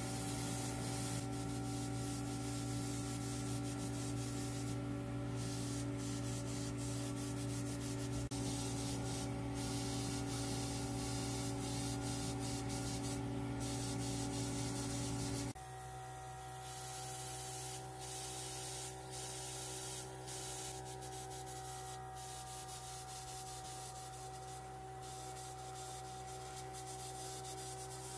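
Rubbing and sanding noise over a steady hum. A little past halfway the hum changes abruptly to a different, quieter one.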